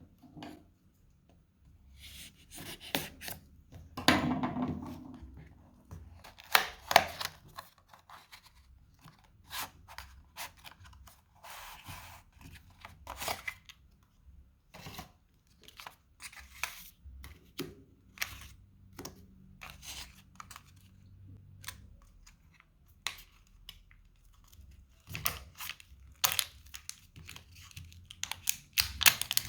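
Product packaging being opened by hand: tearing and crinkling, with scattered clicks and taps, the loudest about four and seven seconds in.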